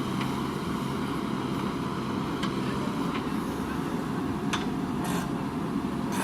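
Diesel engine of a JCB 3DX backhoe loader running steadily under load, with a few faint clicks.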